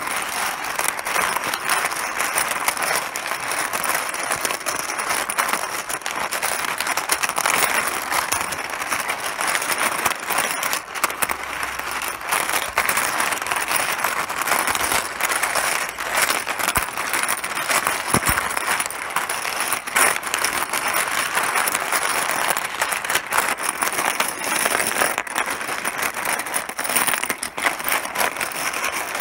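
Mahjong pieces clattering: a dense, unbroken stream of small clicks.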